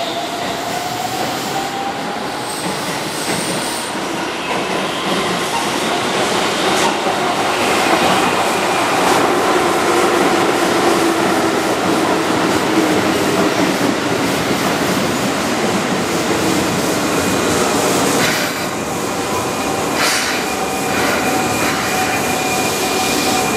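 Keihan 6000-series electric train running close through curved trackwork, its 33-year-old traction motors whining with a pitch that rises over the first several seconds. Its wheels clatter over rail joints and points, with several sharp knocks in the second half and a thin steady squeal from the wheels on the curve.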